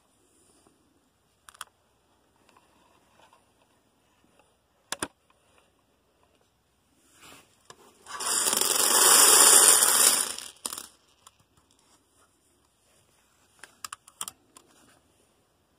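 A large heap of small round plastic Lego dots pouring out of a Lego build into a plastic tub: one loud clattering rattle lasting about two and a half seconds, beginning about eight seconds in. Before it come a couple of sharp clicks of Lego parts being handled and pulled apart, and near the end a few more light clicks as stray dots drop.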